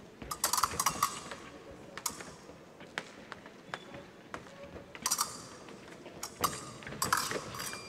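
Épée blades clinking and scraping against each other while the fencers' feet stamp and slide on the piste, making sharp, irregular clicks and knocks in several small clusters.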